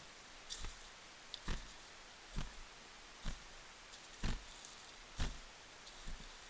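Footsteps of a person walking along a trail strewn with dry fallen leaves and loose rocks: a dull thud with a short crunch of leaves about once a second, seven steps in all, with faint rustling between.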